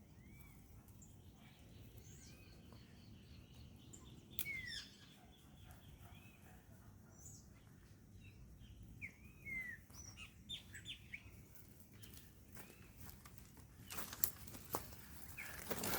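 Several songbirds chirping, with many short rising and falling calls. A few sharp knocks come near the end.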